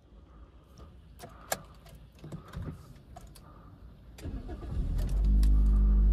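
Light clicks and rattles, then a little over four seconds in the Toyota Corolla GLI's 1.6-litre four-cylinder engine cranks and catches, settling into a steady idle that is much louder than the quiet cabin before it.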